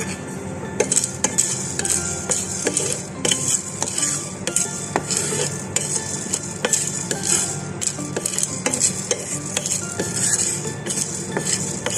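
Whole spices (black peppercorns, cinnamon bark and cloves) rattling and scraping in a dry pan as a wooden spatula stirs them, in repeated strokes about two a second: the spices are being dry-roasted without oil.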